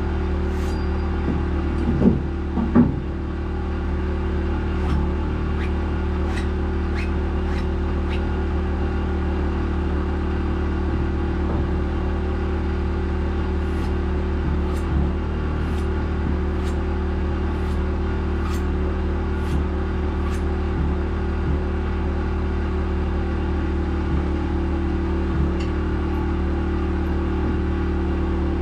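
A steady low mechanical hum from a running motor, with two louder knocks about two seconds in and scattered light ticks over it.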